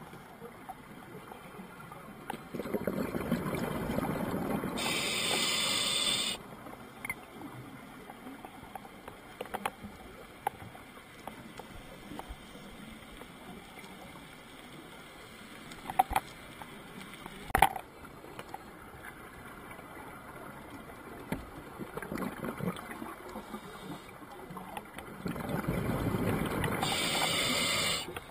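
Scuba regulator breathing heard underwater: twice, a low bubbling rumble of exhaled air, each time joined near its end by a short high hiss. A few sharp clicks come in between.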